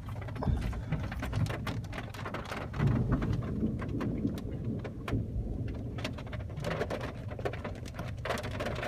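Heavy rain pattering on a car's roof and windows, heard from inside the car, over a low rumble of thunder that swells about three seconds in.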